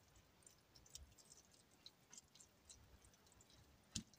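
Near silence with faint, scattered small clicks and soft squishing from a metal spoon spreading and pressing sauced spaghetti squash strands in the roasted squash shell. One sharper click comes near the end.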